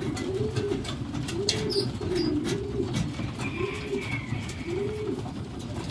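Racing pigeons in a loft cooing, a run of repeated rising-and-falling coos, with scattered sharp clicks of beaks pecking grain at the feed troughs.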